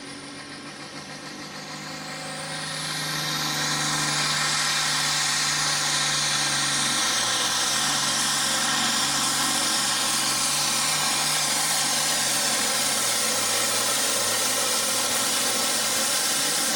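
International 1466 Pro Farm pulling tractor's diesel engine at full throttle, pulling a weight-transfer sled. It builds in loudness over the first few seconds with a high whistle rising in pitch, then holds loud and steady, the engine note dropping slightly about seven seconds in as it works against the sled.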